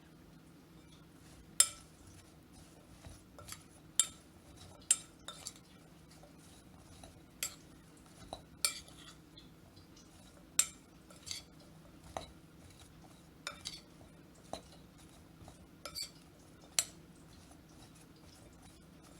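Metal spoon clinking irregularly against a bowl while sweet potato sticks are tossed in a dry coating of rice flour, cornflour and chaat masala.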